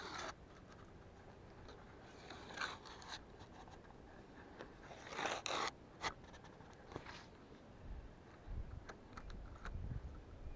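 Faint handling noise from clothing and fishing gear rubbing near a body-worn camera's microphone: a few short scratchy rustles, the loudest about five seconds in, then a low rumble near the end as the rod and reel are handled.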